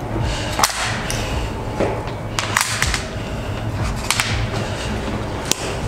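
Five or so sharp clicks and knocks, scattered irregularly, over a steady low electrical hum.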